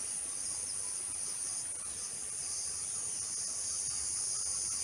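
Steady chorus of insects, a continuous high-pitched shrilling with no breaks.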